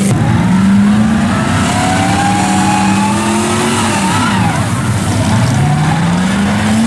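A vehicle engine revving. Its pitch climbs over the first few seconds, drops sharply about four seconds in, then climbs again.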